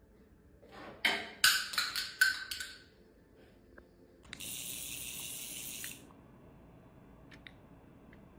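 Water sounds: a few loud splashing bursts, then a steady hiss of running water for about a second and a half that stops suddenly.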